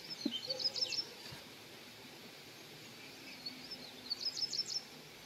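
A small songbird singing two short phrases of quick, high chirping notes, the first right at the start and the second about three and a half seconds in, over faint outdoor background noise.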